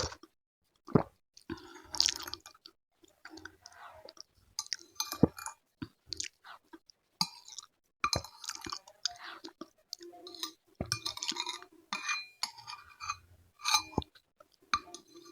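Close-miked chewing of a meal of sayur asem and fried tempeh: irregular bursts of wet mouth sounds and crunches, broken by sharp clicks.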